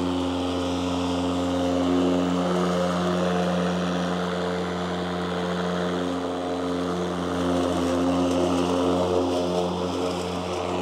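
Mowrator S1 battery-powered remote-controlled lawn mower running and cutting grass, with a steady electric hum and whine that swells slightly twice as it drives along.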